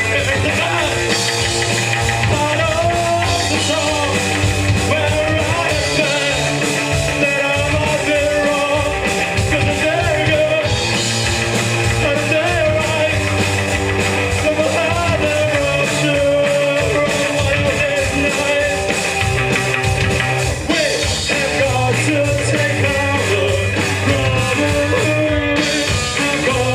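Punk rock band playing live, a singer's voice over electric guitar, bass and drums.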